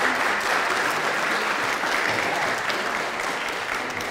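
Audience applauding, starting to die away near the end.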